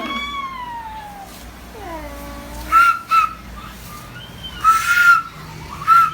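Short breathy whistle-like notes, like a flute, three of them, with sliding, falling, howl-like tones between them that imitate the flute.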